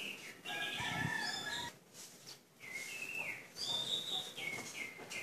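A rooster crowing, one long call starting about half a second in, followed by several shorter, higher calls.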